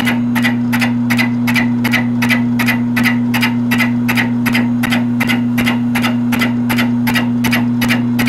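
Milling machine fly-cutting a cast-iron vise base: the single-point cutter ticks evenly about three times a second as it strikes the surface on each turn, over the steady hum of the mill.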